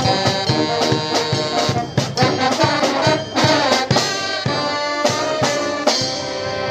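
Brass band playing live: trumpets and trombones holding notes over a steady drum beat.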